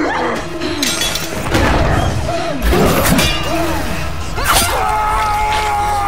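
A fight-scene sound mix: crashes and shattering impacts with a man's grunts and strained cries, and a long held yell near the end.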